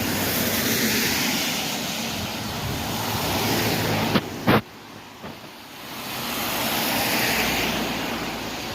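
Road traffic: cars passing one after another, their engine and tyre noise swelling and fading twice. A couple of sharp knocks come about four and a half seconds in.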